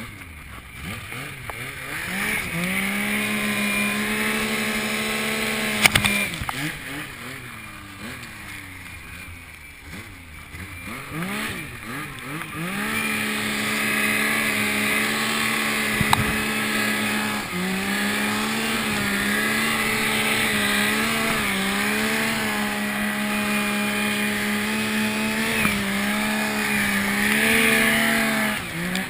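Yamaha Nytro snowmobile's four-stroke three-cylinder engine revving up and held at high revs while ploughing through deep powder. It drops back off the throttle for several seconds near the middle, then revs up and holds again, with short throttle dips near the end. A rushing hiss of snow and wind runs underneath.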